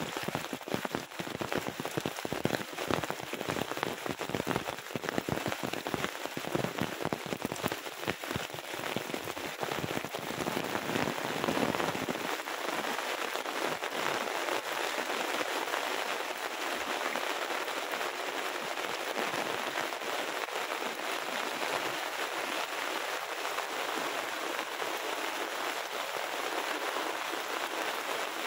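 Heavy rain falling, a dense hiss of drops. For about the first twelve seconds many close, heavy drops land with low thuds; after that it settles into a steadier hiss.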